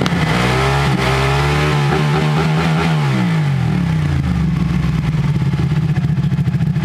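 Ducati 1199 Panigale's 1198 cc L-twin engine running, its revs falling about two to three seconds in and then settling into a steady idle with a pulsing beat.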